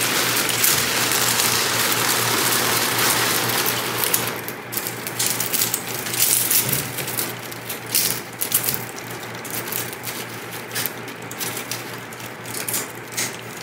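Dry white sage leaves and stems rustling and crackling as they are pulled from a plastic bag, broken up and packed by hand into a perforated steel basket. A dense rustle for the first few seconds, then scattered crisp snaps and crackles.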